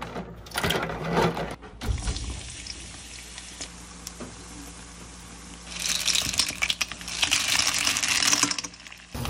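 Clam shells rattling and clinking against each other in water, in two busy bursts of a second or so each about six seconds in.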